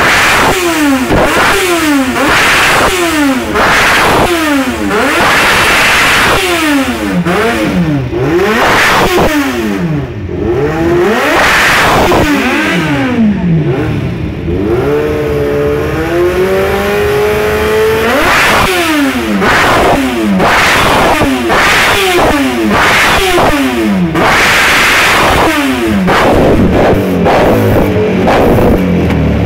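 Yamaha FZ6's 600 cc inline-four revved repeatedly while stationary, through an exhaust with its dB killer removed. Each throttle blip rises sharply in pitch and falls back. About halfway through, the engine holds a steadier, slightly wavering speed for a few seconds, then the blips resume.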